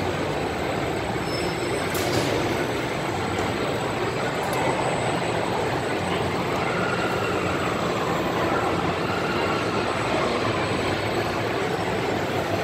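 Steady rumbling, rushing din of a pendulum swing ride running in an indoor amusement hall, with a faint wavering tone in the middle.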